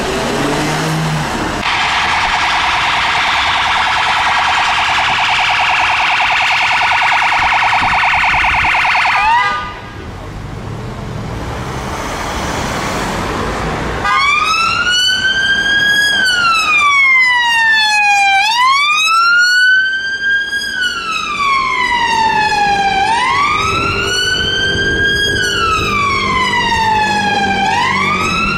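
Police car sirens passing. First a fast-warbling siren tone that cuts off about nine seconds in, then after a few seconds of road noise a wail siren that rises and falls slowly, about every four and a half seconds.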